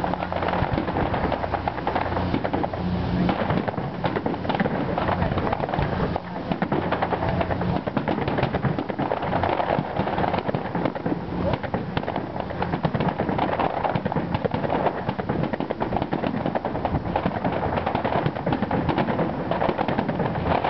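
Aerial fireworks going off in quick succession, a dense, continuous run of bangs and crackling from shells bursting overhead.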